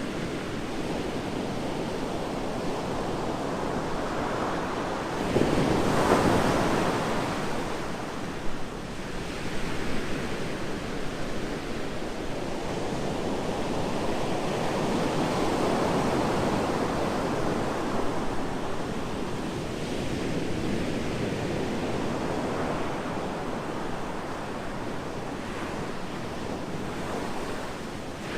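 Ocean surf breaking on a beach: a continuous wash of waves that swells and ebbs, with the loudest wave breaking about six seconds in and another swell around the middle.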